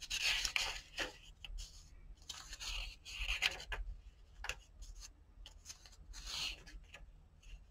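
Paper pages of an old poetry album being turned by hand: a series of dry paper rustles with a few short, sharp page flicks in between.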